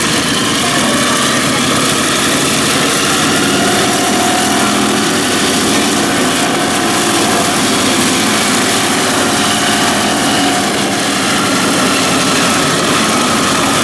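Vought F4U Corsair's 18-cylinder Pratt & Whitney R-2800 radial engine idling steadily on the ground, its propeller turning.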